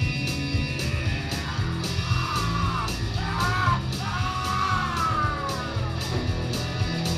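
Rock band playing live: electric guitars and drums with a steady cymbal tick about twice a second, and a man's yelled, wailing vocal that slides up and down from about two to six seconds in.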